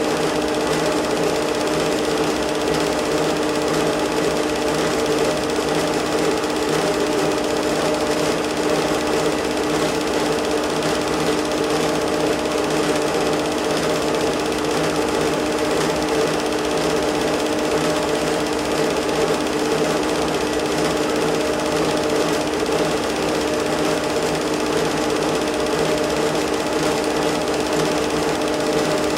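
Film projector running steadily: an even, fast mechanical chatter from the film transport over a constant hum.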